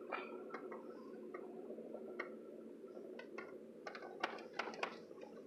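Light clicks and taps inside a car, several close together about four seconds in, over a steady low hum in the cabin.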